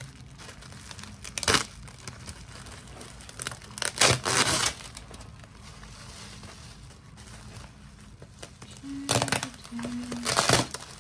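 Plastic packaging and bubble wrap crinkling and tearing as a parcel is unwrapped by hand, in bursts about a second and a half in, around four seconds in, and again near the end.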